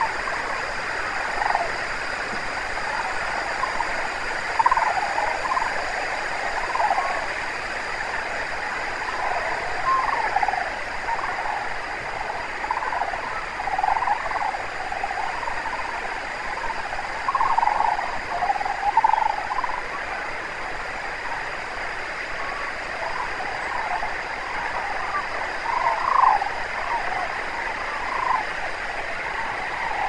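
A large flock of sandhill cranes calling: a steady chorus of rolling, rattling calls, with louder calls rising out of it every second or two.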